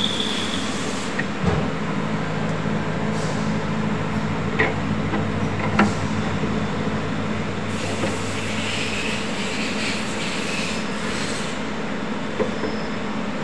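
Steady low machine hum, with a few sharp metallic clicks as a drawbar is pushed and turned by hand into a VMC spindle.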